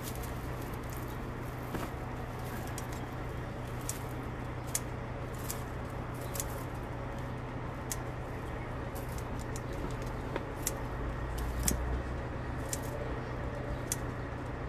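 Scattered light crackles and clicks of dry twigs and leaves being handled and broken, irregular and a few a second, over a steady low hum.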